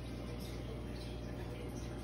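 Steady low electrical hum under a faint even hiss, with a few faint high ticks.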